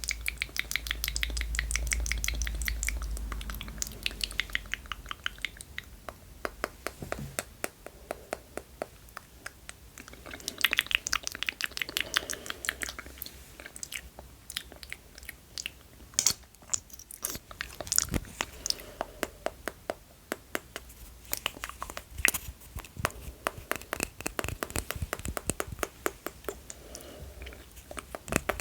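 Wet ASMR mouth sounds close to a microphone: rapid runs of tongue clicks, lip smacks and sucking sounds, coming in bursts with short pauses.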